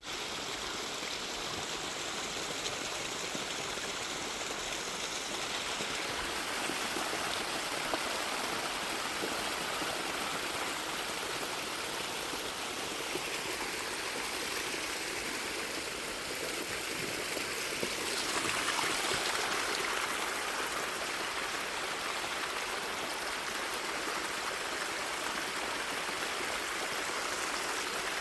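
Steady rush of running water, growing a little louder and brighter about two-thirds of the way through.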